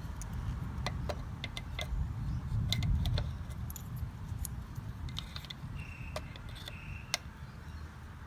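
Small metallic clicks and clinks from bike disc brake parts and tools being handled, scattered irregularly over a low handling rumble.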